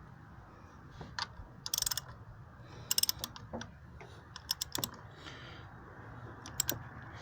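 Socket ratchet wrench clicking in several short bursts of rapid clicks as bolts are turned, in tightening the alternator belt.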